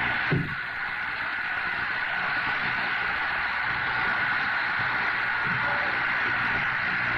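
Steady hiss of noise on the old soundtrack, with a single dull knock about a third of a second in.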